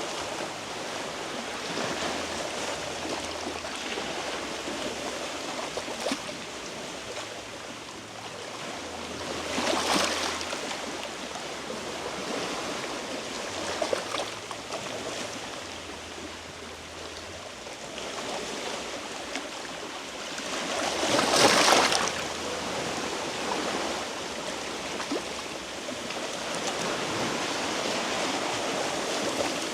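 Sea waves washing against a rocky shore in a steady wash, surging louder twice, about a third of the way in and again about two-thirds of the way in.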